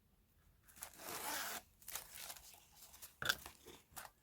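Plastic packaging crinkling as a bag is handled and opened: a rustle lasting about a second, then a few sharp crackles and clicks.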